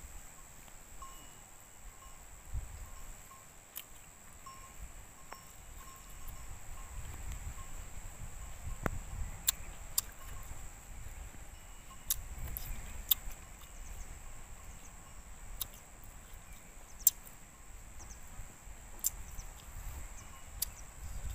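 Quiet outdoor ambience: a steady high-pitched drone like insects calling, with scattered sharp clicks and a faint low rumble.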